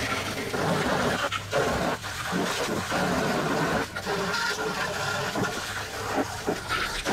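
Water from a garden hose spray nozzle splashing on the inside walls and floor of a Masterbuilt electric smoker's metal cabinet, rinsing off degreaser, surging unevenly as the stream moves. The spray stops suddenly at the end.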